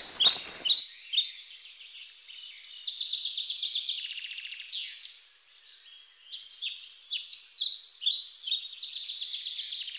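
Several songbirds singing at once: quick repeated trills and short falling chirps overlapping throughout.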